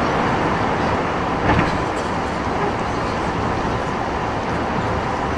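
Steady rush of airliner cabin noise inside an Airbus A380-800 in flight, engine and airflow noise heard at a window seat. There is a brief knock about one and a half seconds in.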